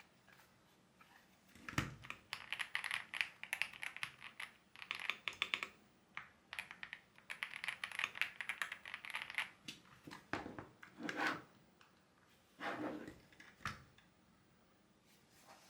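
Mechanical keyboard being typed on: fast runs of key clicks for several seconds, then a few separate, heavier key strikes near the end.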